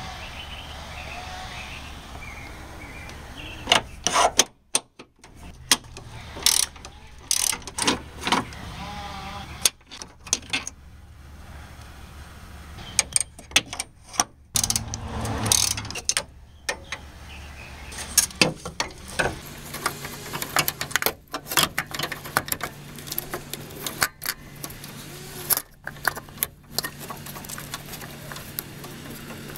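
Wrench and 17 mm deep socket working the engine-mount bolts: irregular clusters of ratchet-like clicking and metal clanks against engine-bay parts, over a steady low hum.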